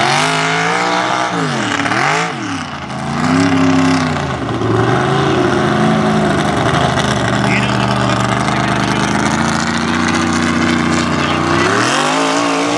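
Mega mud truck's engine revving hard, its pitch swinging up and down several times in quick succession. It then holds at high revs and climbs again near the end.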